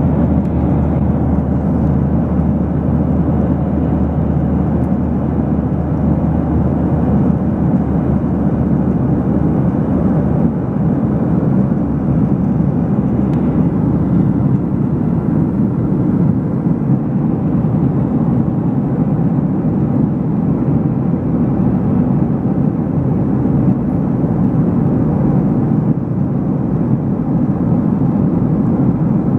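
Jet airliner cabin noise in flight, heard beside the window: a steady, loud roar of engines and rushing air, weighted to the low end with a constant low hum, unchanging throughout.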